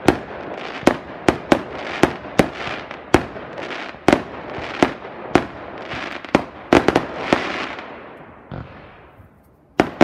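Aerial fireworks going off: a fast run of sharp bangs, one or two a second, each trailed by a crackling hiss. The bangs stop about seven seconds in, the crackle dies away, and two more bangs come just before the end.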